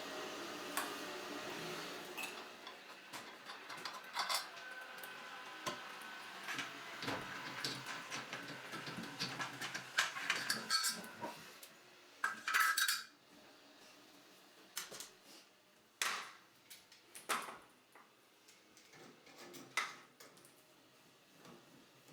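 Metal parts and tools clinking and scraping as a Moen shower valve's trim is taken apart: busy clinks, some briefly ringing, for about the first half, then a few scattered clicks.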